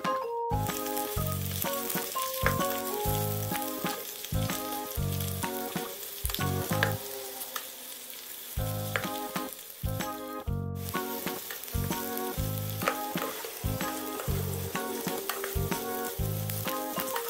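Oil sizzling as sliced shallots, garlic and red chilies fry in a pan, stirred with a wooden spatula: the aromatics being sautéed until fragrant. Background music with a steady beat plays along, and the sound breaks off briefly twice.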